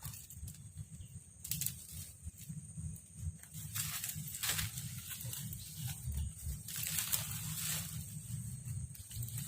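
Someone walking through mangrove undergrowth: several short swishing, rustling sounds of brush and footsteps, a longer one about seven seconds in, over a steady low rumble.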